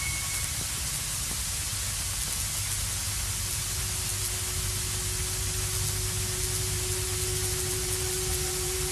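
Steady radio static hiss from a receiver. A faint steady low tone comes in about three seconds in, and a second, higher tone joins it near the end.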